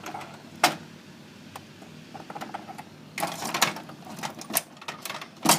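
Steel drawer of a Husky tool chest being slid back in on its drawer slides: a sharp metallic click about half a second in, a stretch of metal rattling around three seconds in, then a few clicks and a knock near the end.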